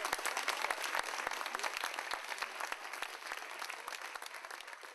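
Applause from a crowd, many hands clapping, growing gradually fainter as it fades out.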